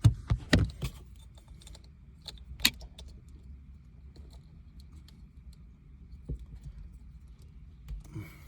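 Handling noise: a quick cluster of knocks and clicks as the phone is set down. Then a sharp click and light rattling as plastic wiring-harness connectors are handled.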